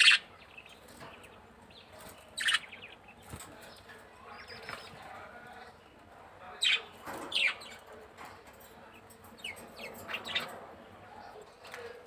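Pet budgerigars chirping: short, sharp, high calls every few seconds, loudest at the start and twice in close succession a little past halfway, with a flutter of wings as one bird flaps at the start.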